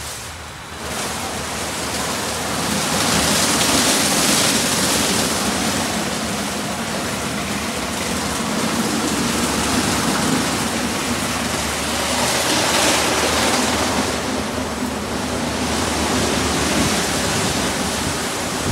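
PDQ Tandem RiteTouch soft-touch car wash at work: a steady rush of spraying water and spinning wash brushes scrubbing a car, swelling louder a couple of times.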